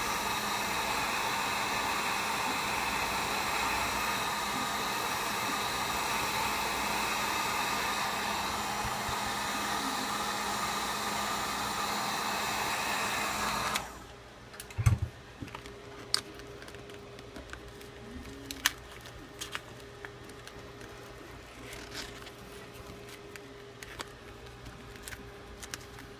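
Wagner heat gun blowing steadily, heating the Galaxy S7's back glass to soften its adhesive, then switched off abruptly about halfway through. Afterwards, scattered light knocks and clicks as the phone and playing cards are handled.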